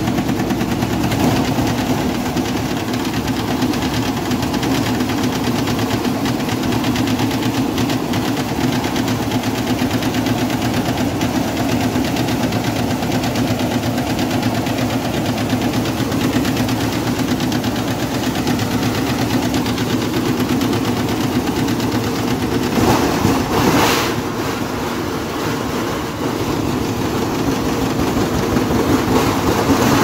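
A 15 kg top-loading washing machine spinning its tub at high speed, a steady motor hum under a fast, continuous rattling and knocking as the out-of-balance tub shakes in its frame. The banging surges louder for about a second, roughly three-quarters of the way through.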